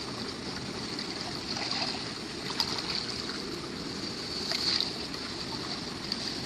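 Steady rush of flowing water, with a few faint splashes.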